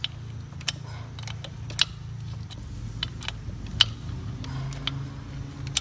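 Scattered sharp metallic clicks and clinks of hand tools working the axle nuts and chain adjusters of a KX65 dirt bike, about six at uneven intervals, over a steady low hum.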